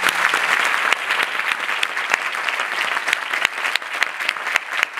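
Theatre audience applauding: many people clapping together in a dense, steady wash of claps.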